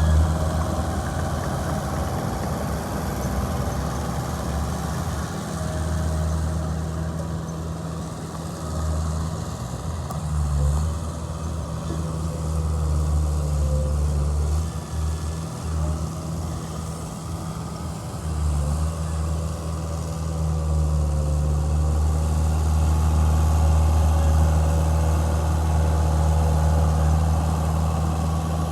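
Bulldozer's heavy diesel engine running, its low drone rising and falling with the work and growing louder in the last third.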